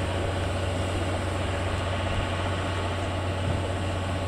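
Locomotives standing with their machinery running: a steady low hum under an even hiss, the steam locomotive letting off steam.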